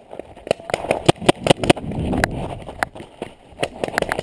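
Hurried footsteps with gear clattering, heard as irregular sharp clicks about two or three a second, over a low rumble of wind on the microphone that swells in the middle.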